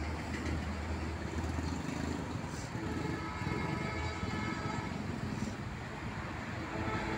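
Engine rumble and road-traffic noise as a KAI CC203 diesel-electric locomotive approaches, still distant. A steady low hum drops away about two seconds in.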